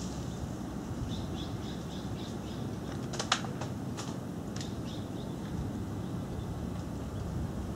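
Steady outdoor background rumble with a bird chirping in a quick run of faint high notes, and a few sharp clicks, the loudest about three seconds in.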